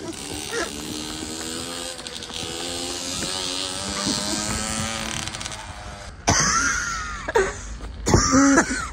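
Small petrol engine of a mini motorcycle buzzing steadily as it rides off along the pavement, with a rushing hiss. About six seconds in, and again near the end, come two loud sounds that sweep up and down in pitch.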